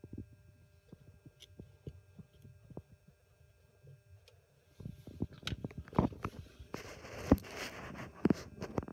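Camera handling noise: faint soft knocks at first, then from about five seconds in louder clicks and knocks, and near the end a rough rubbing scrape against the microphone as the camera is moved in close.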